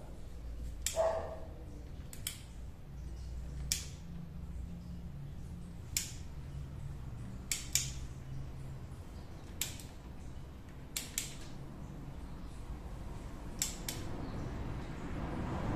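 Sharp single clicks from a click-type torque wrench, about ten of them spread out, some in quick pairs, as the oil filter and bolts are brought to their set torque; each click signals the set torque has been reached. A dog barks once about a second in.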